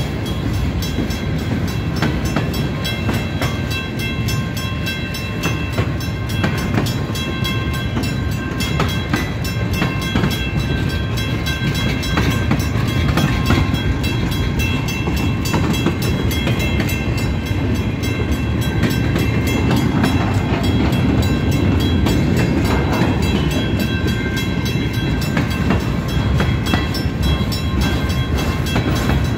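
Freight train cars rolling past at close range: a steady, even rumble of steel wheels on rail with rapid clicking, and a few faint steady high tones above it.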